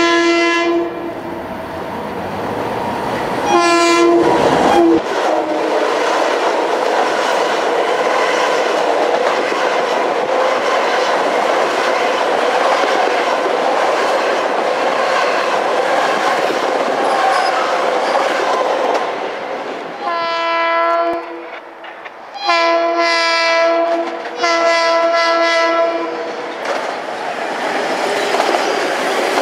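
Long Island Rail Road electric passenger train passing through a station: a horn sounds at the start and again in a short blast about four seconds in, then the cars rumble and clatter past. Near the end a horn sounds three more times, the last two as longer blasts.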